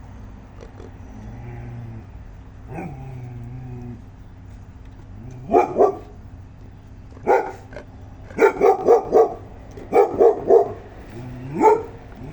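A dog barking: a pair of barks about halfway in, then a single bark, a quick run of four, a run of three and a last single bark near the end.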